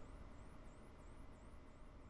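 Near silence: a low room hum with a faint high-pitched whine that rises and drops back about twice a second.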